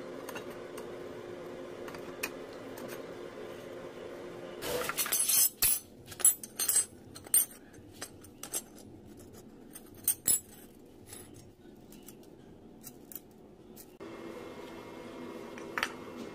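Sharp metallic clinks and clanks from the steel locking pin and its attached chain on a homemade rebar bending jig being pulled out and handled. They come in a cluster about five to seven and a half seconds in, then twice more around ten seconds. A steady low hum runs before and after them.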